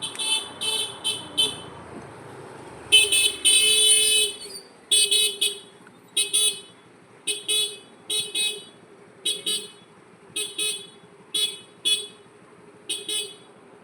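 Electronic beeping: short pitched beeps, mostly in pairs about once a second, with a longer held tone about three seconds in.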